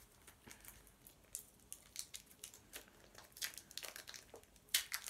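Wrapper of a Swizzels chew crinkling as it is picked open by hand: scattered faint crackles, a little louder near the end.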